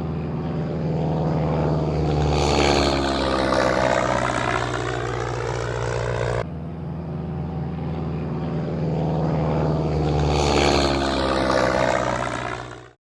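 Airplane flying past, its engine a steady hum with a sweeping rise and fall in tone. The same pass plays twice, the second starting about six seconds in, and it fades out just before the end.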